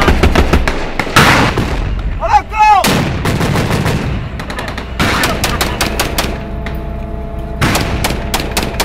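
Heavy small-arms fire in a street battle: repeated rifle and machine-gun shots, with a longer, louder blast about a second in and a quick run of shots from about five seconds in.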